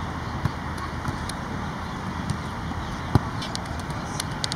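Steady outdoor noise with a handful of short, sharp knocks of a football being struck and caught in goalkeeper practice, the loudest about three seconds in.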